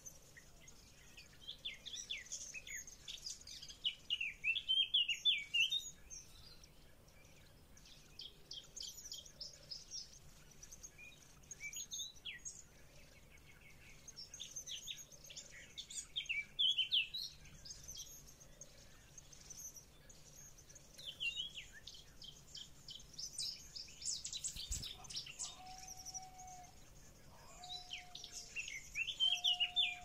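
Eurasian blackbird nestlings begging in the nest: bouts of rapid, high-pitched cheeping that come every few seconds. Near the end a short, lower whistle repeats three times, just after a single sharp tap.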